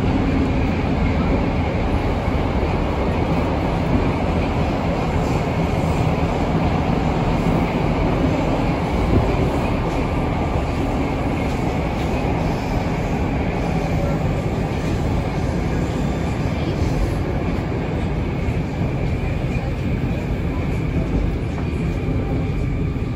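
Moscow Metro train running between stations, heard from inside the carriage: a steady rumble of wheels and running gear with a faint high whine.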